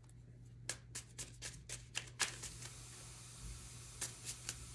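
Tarot cards being handled and shuffled by hand: a faint run of light card slaps about four a second, then a few more near the end, over a low steady hum.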